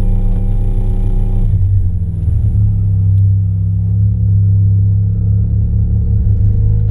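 Mazda RX-7's rotary engine idling with a steady low rumble.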